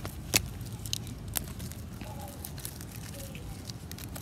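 A few sharp clicks of small plastic pieces being handled and worked at by hand, three of them within the first second and a half, with fainter ticks after, over a steady low outdoor rumble.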